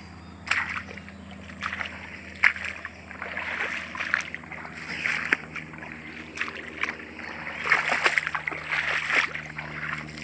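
Footsteps wading through shallow floodwater and wet grass: irregular splashing and sloshing steps.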